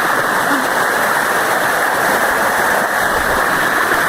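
Waterfall water rushing steadily over rocks close by, a loud, even roar of water.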